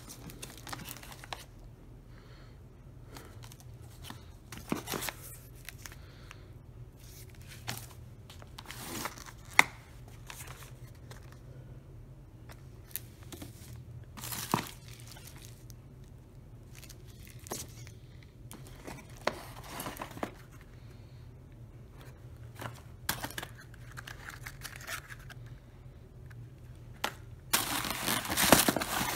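Hands handling cardboard firework packages: scattered knocks as boxes and tubes are picked up and set down, with rustling between, over a low steady hum. Near the end comes a louder stretch of plastic wrap crinkling.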